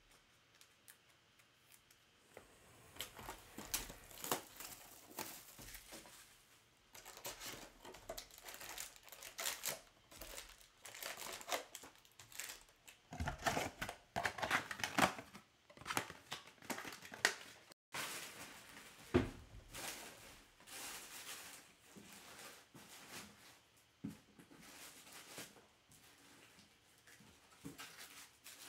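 Trading card pack wrappers being crinkled and torn open, with cards handled, starting a couple of seconds in and loudest in the middle, with a sharp snap a little later.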